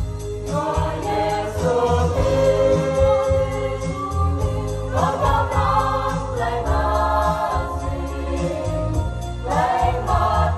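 Mixed church choir of men and women singing a hymn in the Ede (Rhade) language, several voices together in harmony, over electronic keyboard accompaniment.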